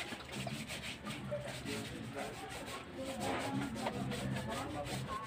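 Quick, repeated rasping strokes of a snakehead fish being scraped and rubbed to strip the slime from its skin.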